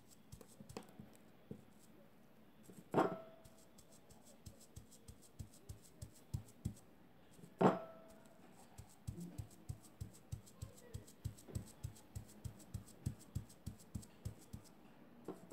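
Soft, repeated taps of a small paint-loaded pad dabbing through a stencil onto fabric laid on a table. The taps come irregularly at first, then settle to about two a second. Two louder knocks with a short ring come about three seconds in and again near the middle.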